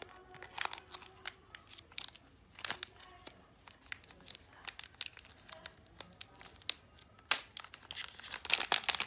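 Small clear plastic packaging bag crinkling and crackling in the hands as it is worked open, in irregular sharp crackles that come thickest near the end.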